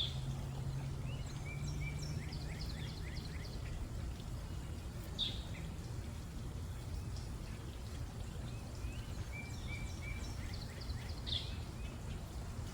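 A songbird singing two phrases of quick, falling chirp notes, one about a second in and another near the end, over a steady low rumble of outdoor background noise.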